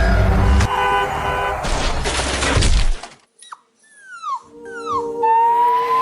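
A loud noisy rush for about three seconds, then a brief hush, then a puppy whimpering: a few short falling whines followed by one long high whine.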